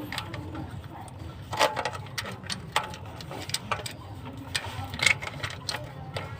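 Irregular sharp clicks and clinks of metal hand tools, over a steady low hum.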